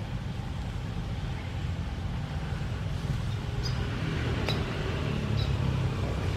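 Steady low outdoor rumble with no distinct source, with three short, faint high chirps in the second half.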